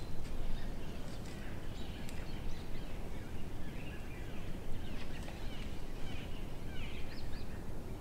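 Small birds chirping and calling on and off over a steady low outdoor rumble, with the chirps busiest a little past the middle.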